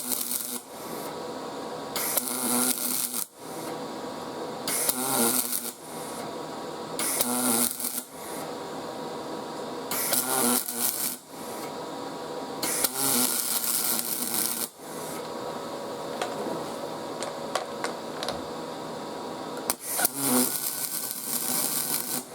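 MIG welding arc buzzing and crackling in short bursts of one to two seconds, about six of them, as silicon bronze wire is MIG-brazed in short beads onto a crack in a cast-iron exhaust manifold. A steady hum runs between the bursts.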